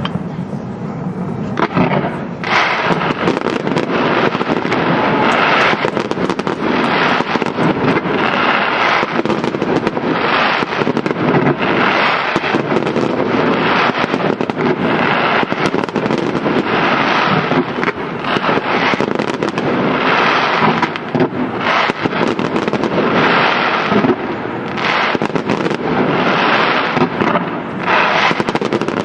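Fireworks: a dense, continuous barrage of firecracker bangs and crackling that thickens about two seconds in.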